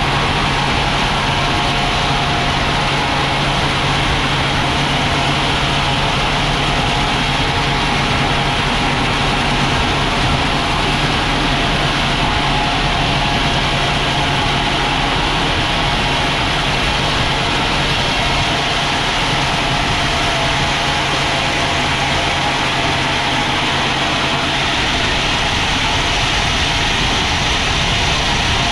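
Sawmill machinery running steadily: a low engine-like hum under a dense, even mechanical noise, with no breaks.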